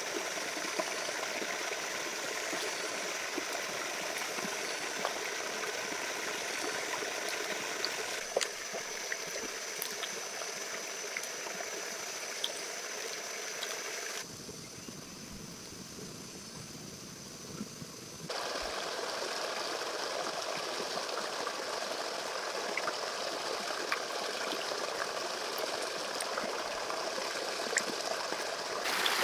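Steady rush of running water, like a stream, with a few faint clicks. About halfway through it abruptly drops and thins for about four seconds, then comes back.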